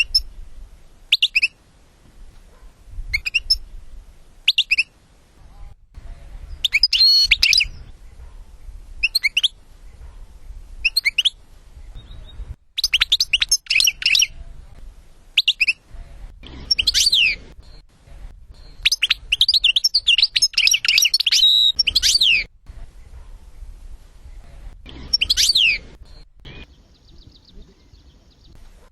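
European goldfinch song on a bird-training recording: high twittering phrases in short bouts with pauses between them, some bouts running a couple of seconds. Near the end comes a quick, even run of high notes.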